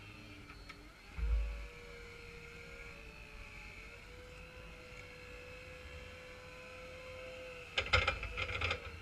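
Electric forklift's hydraulic pump motor whining steadily, its pitch shifting slightly as it works the forks to lift and tip a heavy beech log. There is a low thump about a second in and a brief run of knocks and clatter near the end as the log shifts on the fork.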